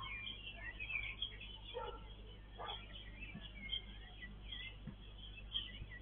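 Birds chirping: many short, high calls scattered and overlapping, with a steady low hum underneath.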